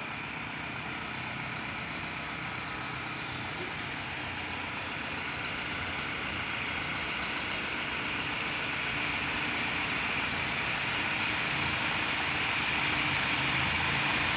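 Mercedes-Benz Torino MD bus rolling slowly forward without braking, its Meritor brakes making a noise like a tortilla machine over the running engine. The sound grows gradually louder as the bus approaches.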